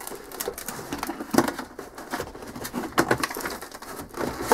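Cardboard packaging being handled as a box is opened and its contents lifted out: irregular rustling and scraping of cardboard with light knocks.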